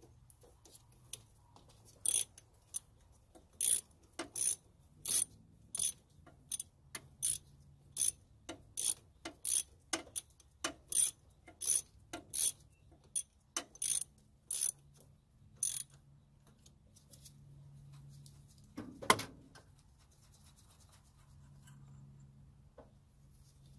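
Socket ratchet clicking in repeated back-strokes, about three every two seconds, as a bolt is run in on the engine's power steering bracket. The ratcheting stops after about sixteen seconds, and a single sharp knock follows a few seconds later.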